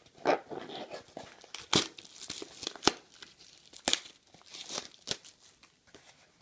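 Clear plastic shrink wrap being torn off a trading-card box and crumpled in the hands: irregular crinkling with a few sharp, louder snaps of tearing.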